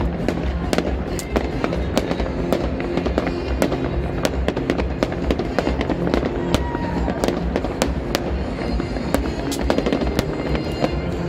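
Fireworks going off in many sharp, irregular bangs and crackles, several a second, over music with a steady low beat.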